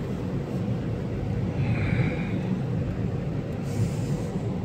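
Steady low rumble of a car being driven, heard from inside the cabin: engine and tyre noise, with a short hiss near the end.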